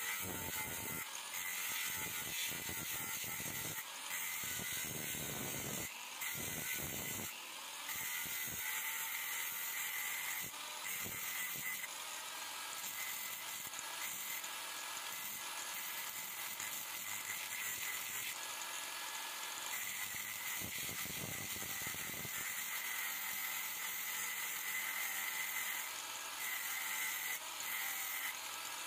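Small electric grinder's abrasive wheel spinning, with a soldering iron's copper bit held against it: a steady grinding hiss over a high motor whine, dipping briefly a few times. The corroded bit is being ground back to a clean point.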